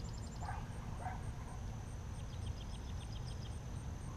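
Outdoor ambience at a pond: a steady low rumble with faint high insect-like trills and ticking, and two faint short animal calls about half a second and a second in.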